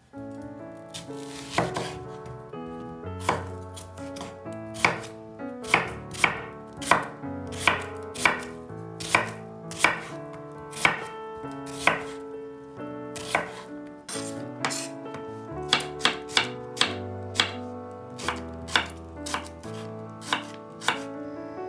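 Kitchen knife slicing an onion on a bamboo cutting board, a series of sharp chops about one to two a second as the blade strikes the board, over soft background music.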